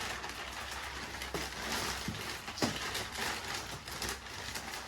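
Plastic packaging rustling and crinkling as it is handled and torn open, with a few sharp clicks.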